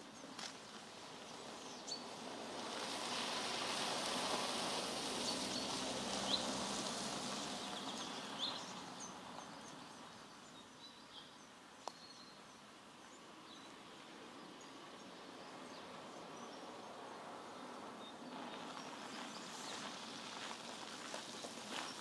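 Outdoor ambience: a broad rushing noise swells over the first few seconds and dies away by about ten seconds in, with a few short bird chirps over it. Faint footsteps on a path come in near the end.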